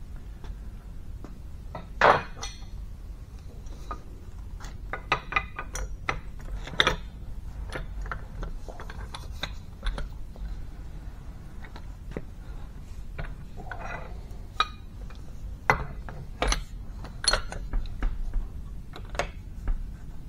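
Wind-wire retaining ring being wound into its groove on a hydraulic cylinder as the barrel is turned with a long steel bar: irregular metallic clicks and clanks of steel on steel, the loudest about two seconds in.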